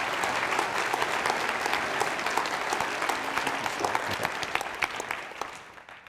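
Lecture-hall audience applauding: dense clapping that dies away in the last second.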